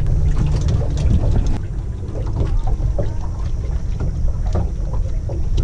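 Wind buffeting the microphone, a steady low rumble, with a few faint small knocks from the anchored boat.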